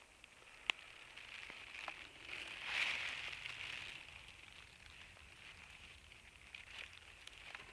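Rustling and crackling of dry twigs, grass and pine needles on a forest floor as they are pushed aside by hand, loudest about three seconds in, with one sharp click just under a second in.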